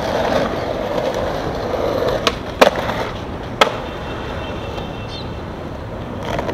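Skateboard wheels rolling on concrete, then three sharp clacks of the board against the ground. The loudest clack comes about two and a half seconds in, and the rolling stops around then.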